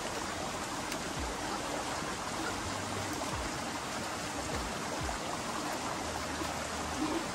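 Steady rush of a mountain stream flowing over rocks, with a few soft low thumps underneath.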